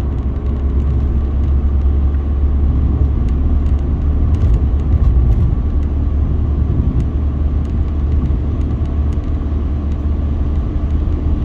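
Car being driven, heard from inside the cabin: a steady low rumble of engine and road noise.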